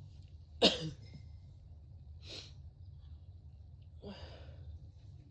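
A person with a cold sneezes once, sharp and sudden, about two-thirds of a second in. Two softer breathy sighs or breaths follow, about two and four seconds in.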